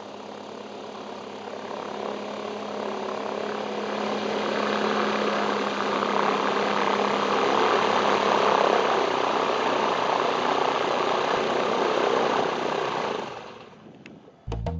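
Zenith STOL CH 750 light aircraft taxiing, its piston engine and propeller running steadily and growing louder as it approaches. The engine sound falls away near the end, just before music begins.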